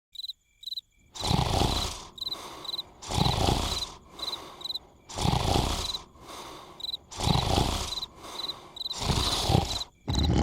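Cartoon snoring: loud, rough snores about every two seconds, each followed by a quieter out-breath, starting about a second in. Crickets chirp steadily throughout.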